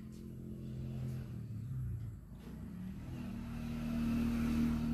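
A motor vehicle's engine running as a low hum, its pitch stepping up about halfway through and growing louder toward the end.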